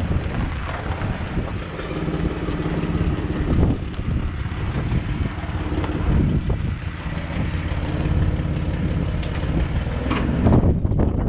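Truck engine running as the truck is driven a short way, its note rising and falling with the throttle.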